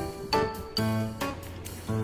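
Background music: plucked, guitar-like notes with a steady beat.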